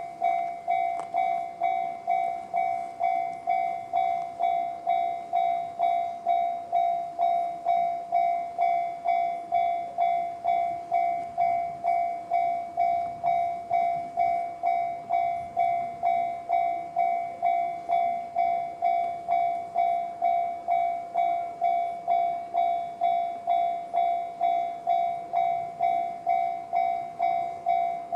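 Japanese railway level-crossing alarm ringing the JR standard electronic bell tone: an even, ringing strike repeated steadily at about two strokes a second.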